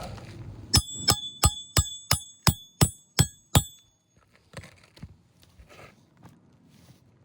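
Hammer driving a roofing nail through a shingle: nine quick ringing metal strikes, about three a second, then faint rustling of shingles.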